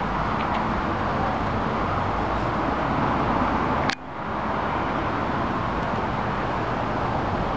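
Steady outdoor background noise picked up by a compact camera's built-in microphone, an even hiss with a low rumble. About four seconds in there is a sharp click, and the level dips and then recovers.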